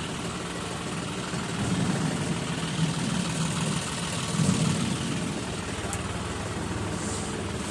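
A tractor's diesel engine idling steadily.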